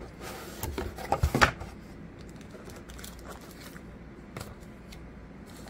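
Cardboard box being opened by hand: a quick run of scraping and knocking as the lid is pulled open, loudest about a second in, then lighter rustling and tapping as the paper pamphlet and plastic-wrapped contents are handled.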